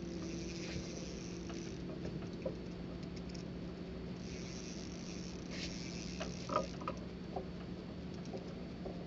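Spinning reel being cranked to bring in a hooked catch: light irregular clicking and scratching, with a few sharper clicks a little past the middle, over a steady low hum.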